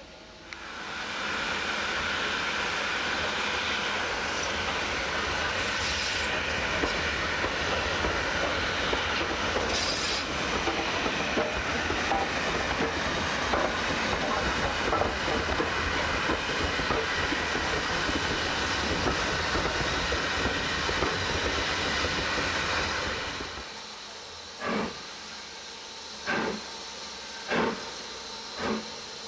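Steam locomotive LMS Black Five 45337 running past close by: a steady rush of running noise with steam hiss and rail clatter, which drops away suddenly near the end. Then come five short, sharp exhaust beats about a second apart from BR 9F 92203 as it sets off.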